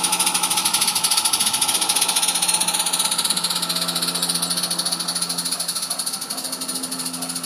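Large-scale model 2-6-2 steam locomotive running, giving rapid, even chuffs over a steady hiss, easing slightly as it moves away near the end.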